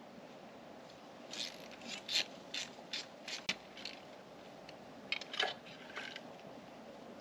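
Cleaner being sprayed onto an engine block from a trigger spray bottle: a quick run of short hissing squirts, about two or three a second, then a few more near the end.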